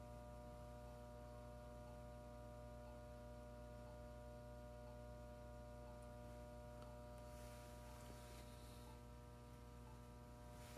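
Near silence: a steady electrical mains hum with faint ticks a little more than once a second, and a brief soft hiss about seven seconds in.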